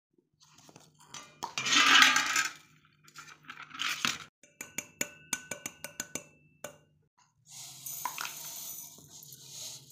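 Steel kitchen utensils clinking and scraping, including a run of sharp ringing metallic taps, then spice poured into a steel mixer-grinder jar with a steady hiss near the end.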